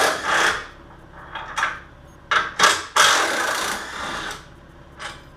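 DeWalt 18-volt cordless impact driver run in short bursts, then a longer burst of about a second and a half, loosening engine mount bolts.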